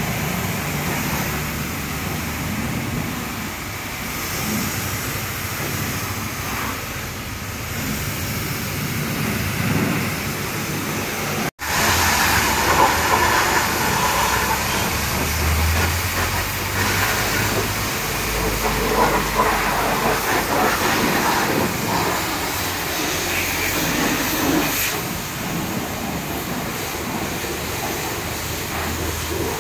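High-pressure washer jet spraying water against the underside of a car, a steady loud hiss. It cuts out for an instant about halfway through and then comes back.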